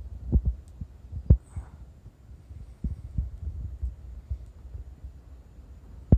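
Low rumble on a handheld camera's microphone, broken by irregular soft thumps of handling noise. The strongest thumps come about a second in and again at the very end.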